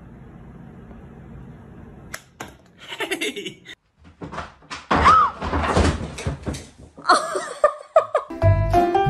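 A low steady hum, then about two seconds in a run of sharp knocks and thumps with noisy clatter. A tune with a steady beat starts near the end.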